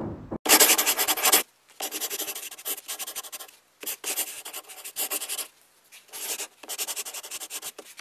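Ratchet socket wrench clicking in quick runs of about a second each, five or so with short pauses between, as the bolts holding a washing machine's drain assembly are unscrewed.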